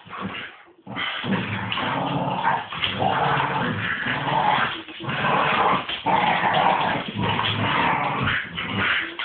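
Two Staffordshire bull terriers growling almost without pause as they tug at a person's trouser legs. The growling starts about a second in, after a short quiet moment.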